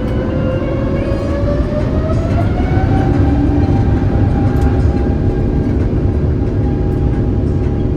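Airbus A350-900's Rolls-Royce Trent XWB engines heard from inside the cabin, their whine rising over the first few seconds and then holding steady, over a heavy low rumble.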